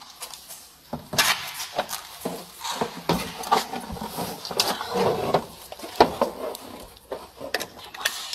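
Scattered knocks, clicks and rustling from people moving and handling things close to a police body camera.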